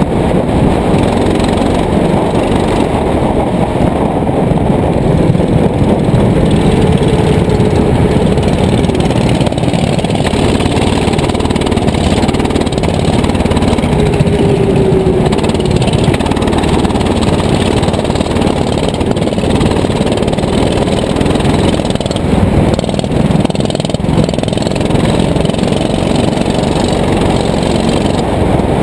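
Go-kart engine running hard on track, its pitch rising and falling as it speeds up and slows for corners.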